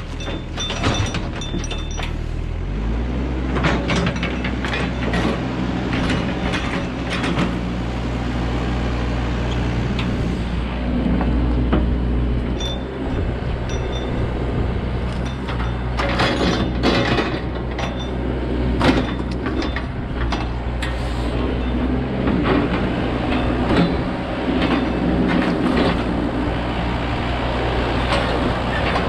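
Excavator's diesel engine running steadily under load, picking up about two and a half seconds in, with frequent sharp clanks and cracks from the machine working through the tangled pile.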